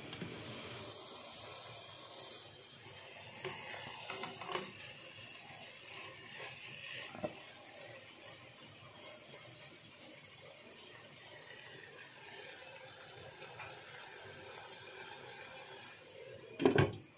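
Cooked noodles and vegetables being turned in a nonstick wok with a spatula: soft scraping and a few light taps of the spatula on the pan over a steady faint hiss. One loud knock near the end.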